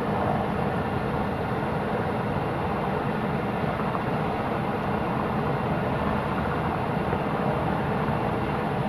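Military helicopter running steadily: the continuous, even sound of its engines and rotor.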